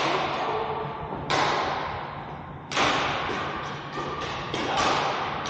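Badminton rackets striking a shuttlecock in a rally, sharp hits about every one and a half seconds, each trailing off in a long echo of the hall. Several lighter hits come close together near the end.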